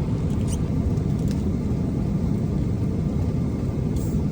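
Steady low rumble of an airliner cabin, engine and airflow noise, with a couple of faint clicks.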